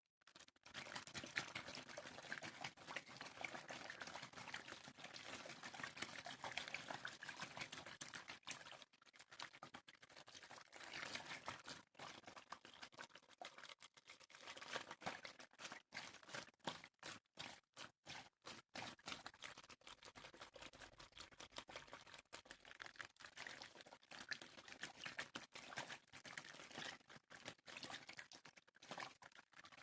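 Water pouring and trickling close to the microphone, a continuous splashing run broken by many short pauses and clicks.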